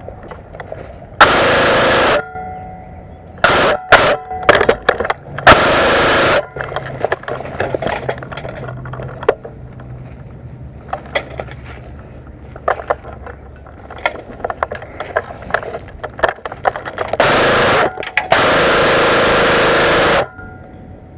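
Airsoft guns firing in full-auto bursts, four of them, each about a second long and the last nearly two seconds, with scattered single sharp cracks between the bursts.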